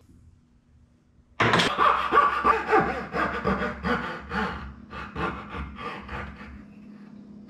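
Coping saw cutting out dovetail waste in a pine board, in quick rough strokes. It starts suddenly about a second and a half in and fades toward the end.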